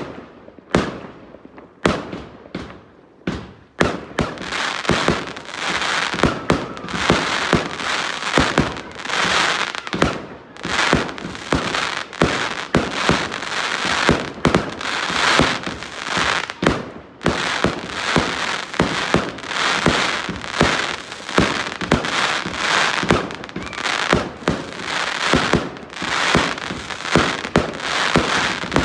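Fireworks going off in quick succession: sharp bangs with crackling between them. They are spaced out for the first few seconds, then thicken into a dense, nearly continuous barrage.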